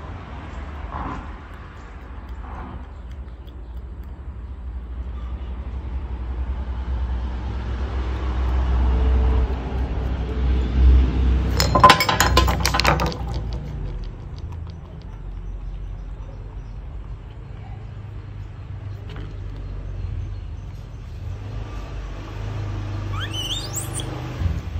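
Small ceramic teapot and its lid clattering and clinking on a wooden table as a baby monkey knocks the pot over, a quick run of clinks about twelve seconds in, over a steady low rumble.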